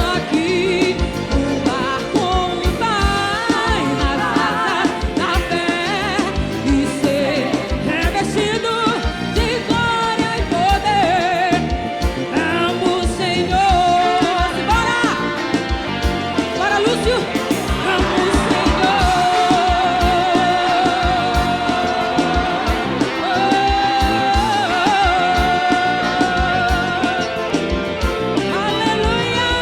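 Live forró band music with a steady drum beat and a wavering, vibrato-laden melody line over it.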